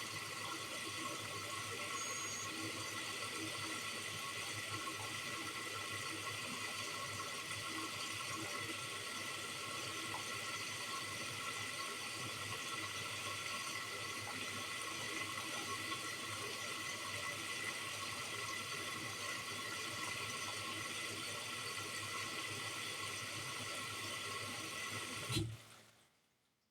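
Bosch Series 4 washing machine taking in water for its final rinse: a steady hiss of water running in through the inlet valve. The sound cuts off suddenly near the end.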